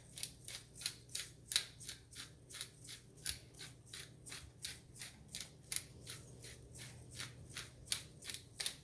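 Hand pepper mill being twisted, grinding cracked black pepper with a steady run of crisp crunching clicks, about four a second.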